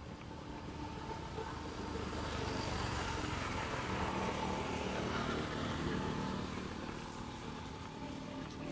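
A motor vehicle passing by: engine and rushing noise swell over a few seconds, then fade away.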